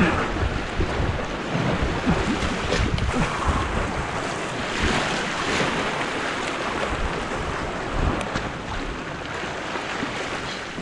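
Sea surf washing and foaming over jetty rocks in swells, with wind buffeting the microphone.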